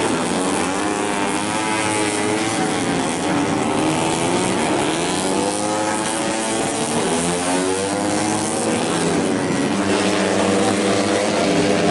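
Several four-stroke underbone race motorcycles of up to 150cc running hard together, their engines rising and falling in pitch through the revs and gear changes, overlapping.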